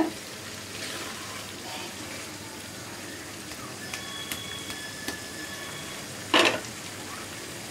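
Oily korma gravy sizzling and bubbling in a wok while a silicone spatula stirs it, the oil and ghee risen to the top as the curry finishes cooking. A short sharp knock about six and a half seconds in.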